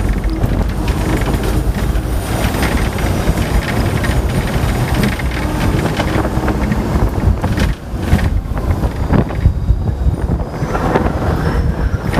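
Hong Kong double-decker tram running along its rails: a steady rumble and rattle of the car with repeated knocks.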